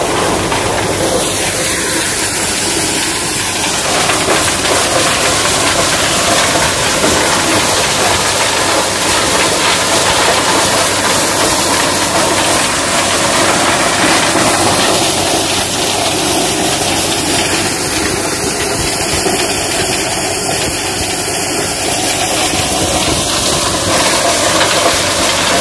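Tractor-driven corn thresher running at work: a loud, steady mechanical din of the tractor engine and the threshing drum, with a dense hiss of corn going through the machine.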